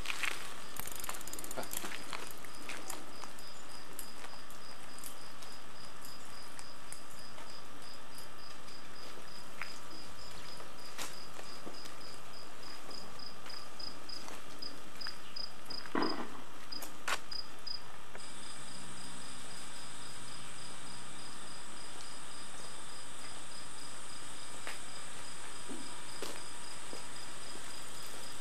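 Crickets chirping: a steady string of short, high chirps, several a second, stops a little past halfway, and a continuous higher trill carries on after it. There are a few faint clicks and one brief knock about halfway through.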